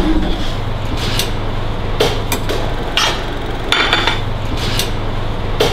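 Clatter of dishes and serving utensils, scattered sharp clinks and knocks of metal and crockery, several with a short ringing tone, over a steady low hum.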